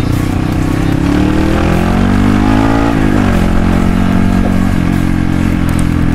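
Trail motorcycle's four-stroke engine accelerating hard: the revs climb for about two seconds, drop sharply at a gear change about three seconds in, then hold steady as the bike pulls.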